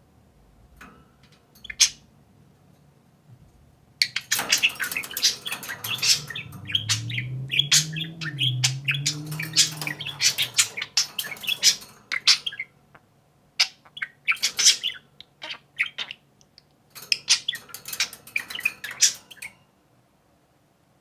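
Pet budgerigars chirping and warbling at each other in rapid, busy runs of high chirps and squawks. There are three bursts, with short pauses between them, and a couple of lone chirps before the first.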